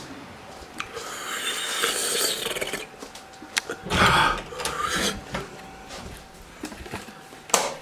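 Handling noise from a handheld camera being carried: rubbing and rustling, a dull bump about four seconds in, and a few sharp clicks.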